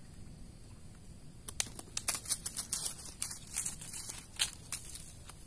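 Close handling noise: a run of rapid crackles and rustles lasting about three seconds, starting about a second and a half in, as a just-caught small climbing perch is handled.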